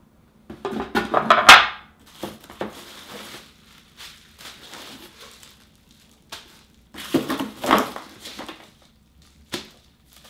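Bubble wrap and cardboard packaging crinkling and rustling as bubble-wrapped items are handled and lifted out of a cardboard box, in several uneven bursts, the loudest about a second and a half in, with a short sharp click near the end.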